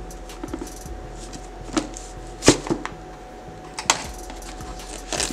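A smartphone retail box being handled and turned over in the hands: a few scattered light knocks and clicks, the loudest about two and a half seconds in, over a faint steady hum.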